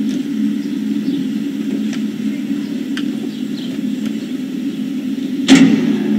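A steady low hum, with faint bird chirps above it and a sharp knock about five and a half seconds in.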